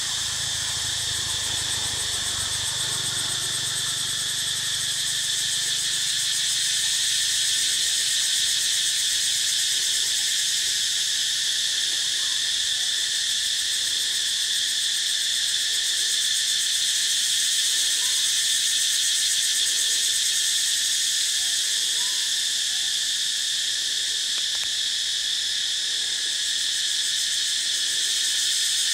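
Steady insect chorus: a loud, continuous high-pitched buzz that holds without a break.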